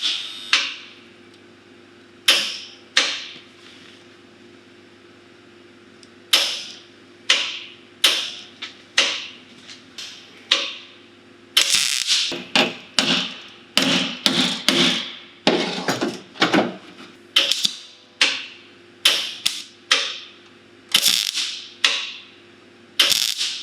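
Hammer striking sheet-metal body panels, a couple of dozen irregular blows, each ringing briefly, coming faster in the second half. A steady machine hum runs underneath.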